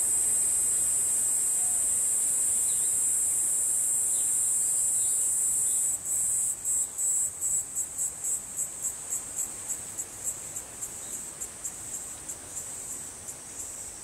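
Cicada singing: a steady, very high-pitched buzz that about six seconds in breaks into a run of short pulses, about three or four a second, fading away.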